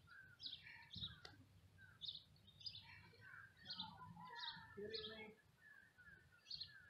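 Faint birdsong: many short, high chirps and quick falling notes, repeated throughout.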